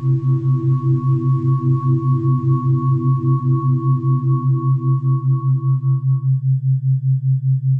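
Synthesized 'healing frequency' sine tones: a strong low hum pulsing about five to six times a second, a theta-rate beat, layered with fainter pulsing higher tones. The higher tones drop out about six and a half seconds in, leaving the low pulsing hum.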